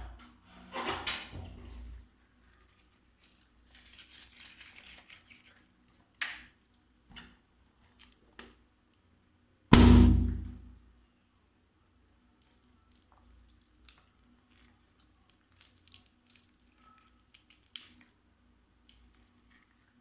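A balloon bursting with one loud pop about halfway through, among quieter handling noise, short rustles and scattered small clicks and taps.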